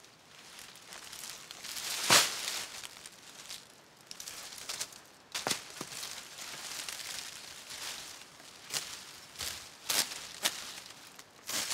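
Dry coconut palm fronds rustling and crackling as they are carried, dropped and worked by hand. There is a loud, sharp crackle about two seconds in, then a run of short, irregular crackles and scrapes.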